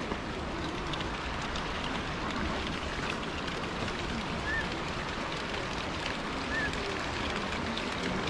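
Steady rush of flowing stream water, with faint crowd voices under it. Two short high chirps come about halfway through and again a couple of seconds later.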